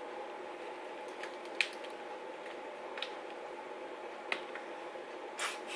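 Handling noise from plastic acrylic paint tubes: a few small sharp clicks, the loudest about a second and a half in, and a short rustle near the end, over a steady hum in the room.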